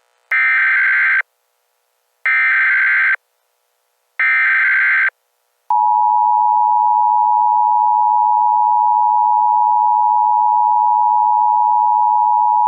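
Emergency Alert System SAME header: three short bursts of warbling digital data about two seconds apart. About six seconds in, the steady two-tone EAS attention signal starts and holds.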